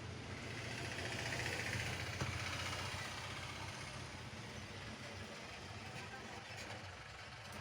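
4SB marble cutter's electric motor running steadily, a low hum with a hiss above it that swells about a second in and then settles.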